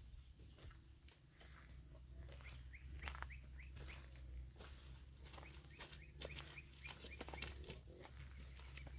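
Faint footsteps crunching over stony ground, with a quick run of short bird chirps about two and a half seconds in, over a steady low hum.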